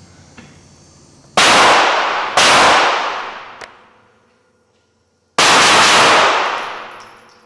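Three gunshots, each echoing and dying away over a second or two; the first two come about a second apart, the third about three seconds later.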